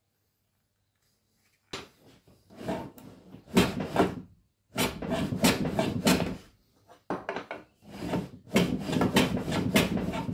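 Wood being rubbed or scraped by hand in repeated strokes: after a sharp knock about two seconds in, several gritty strokes of a second or so each, with short pauses between them.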